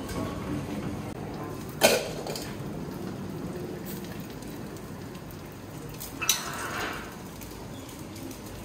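Buffet restaurant ambience: a steady background din, with two sharp clinks of tableware, a loud one about two seconds in and another about six seconds in.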